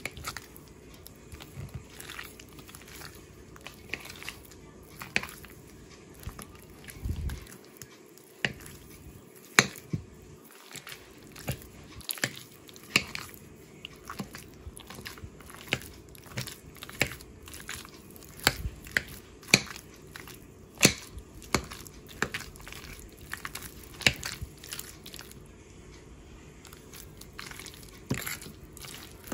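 Metal spoon mashing cream cheese into a mayo-coated shrimp mixture, with soft squelching and sharp, irregular clinks and scrapes of the spoon against the dish, roughly one a second.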